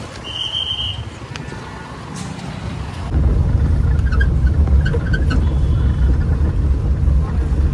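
Street noise with a short high beep about half a second in. At about three seconds it cuts to the steady low rumble of a jeep's engine and road noise, heard from inside the cabin while it drives a winding mountain road.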